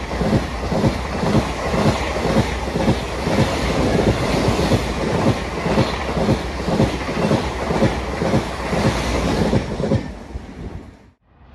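Ouigo TGV Duplex double-deck high-speed train running through a station at speed, its wheels clattering over the track in a steady rhythm of a few beats a second over the rush of the passing cars. The sound fades as the last car passes and cuts off shortly before the end.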